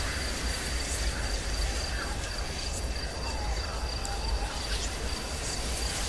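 Haunted-house horror ambience sound effect: a steady low rumble and hiss under a constant high cricket-like chirr, with faint wavering tones sliding up and down and a few scattered clicks.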